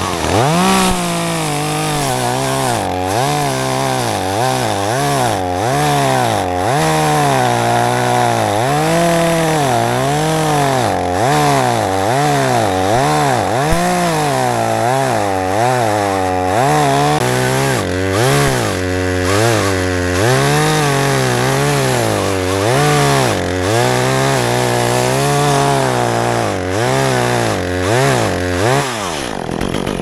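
Two-stroke chainsaw cutting through dead plum wood. It revs up at the start, its engine speed rises and falls about once a second as the chain bites and frees in the cut, and it drops back to idle near the end.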